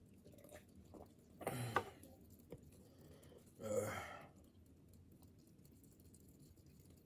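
A man's short non-speech vocal sounds while eating: a sigh about a second and a half in, then another brief voiced sound around four seconds as he bites into a cheeseburger, with a few faint clicks in between.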